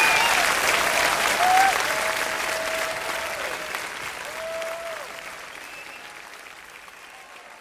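Concert audience applauding, with a few scattered shouts and whistles, fading out steadily.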